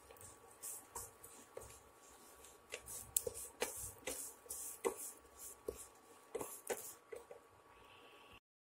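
Wooden spatula stirring and scraping vermicelli roasting in a little oil in a steel pan, with irregular faint clicks and scrapes against the pan and a faint steady tone underneath. The sound cuts off just before the end.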